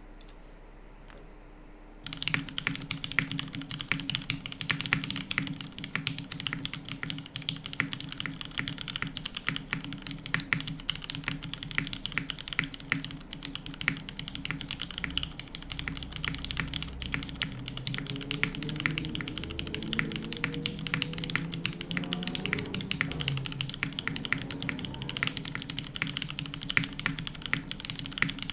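Continuous fast typing on a Haus 65% mechanical keyboard with lubed vintage Cherry MX Black linear switches in an aluminium plate, starting about two seconds in. A steady low hum runs underneath.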